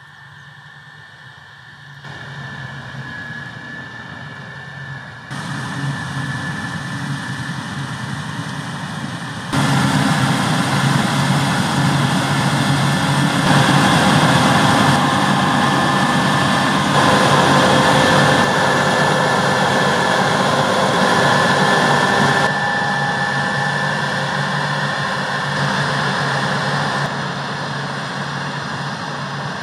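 Heavy farm machinery running: the engine drone of a combine harvester and tractors, with a steady high whine over it. The sound jumps abruptly in level several times and is loudest in the middle.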